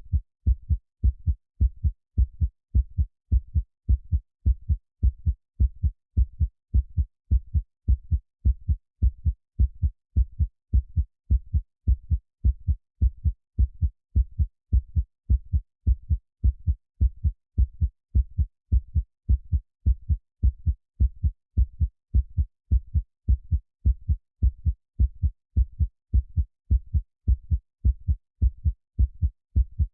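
Deep, muffled heartbeat repeating at a slow, steady rate, each beat a double thump (lub-dub) with no change in rhythm or strength.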